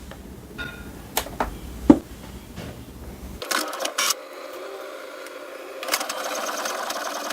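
HP Smart Tank all-in-one inkjet printer starting a colour copy: a few sharp clicks, a burst of mechanical clicking about three and a half seconds in, then from about six seconds in its mechanism whirring steadily with a fast even rattle.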